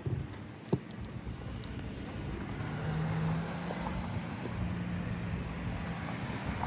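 A motor vehicle going by, its low engine hum swelling from about two and a half seconds in and holding for a few seconds. A sharp knock sounds just under a second in.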